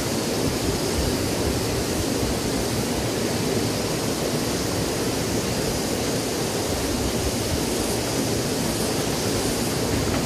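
Steady rush of water from a small cascade tumbling over rocks in a river.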